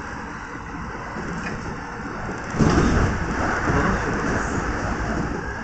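Steady running noise of a Kintetsu 1030-series electric train, heard from its cab, then a sudden loud rush and rumble about halfway through as an oncoming train passes close alongside on the adjacent track.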